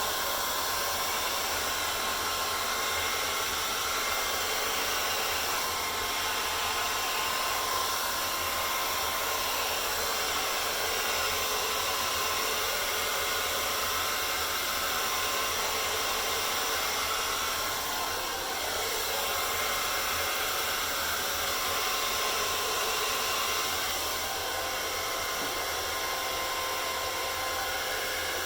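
Hair dryer running steadily, blowing out acrylic paint for a dutch pour: a constant rush of air with a faint high whine.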